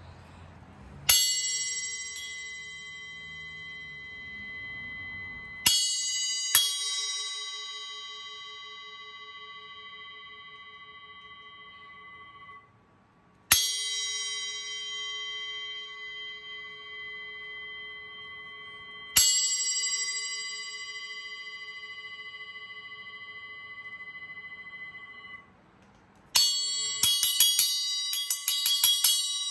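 Arborea Knight 6-inch bell cymbal struck with a wooden drumstick. A single hit, a quick pair, and two more single hits each ring out for several seconds with a bright, clearly pitched tone. Near the end comes a fast flurry of strikes.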